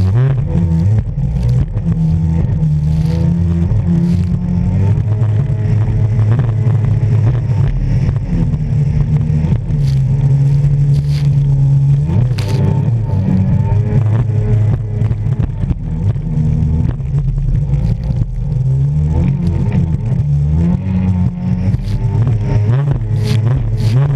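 Jet ski engine running at speed, its pitch rising and falling with the throttle, with water rushing and spray slapping against the hull.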